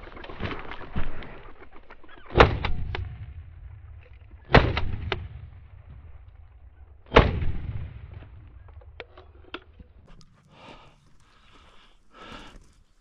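Three shotgun shots, roughly two to two and a half seconds apart, each followed by about a second of rolling echo.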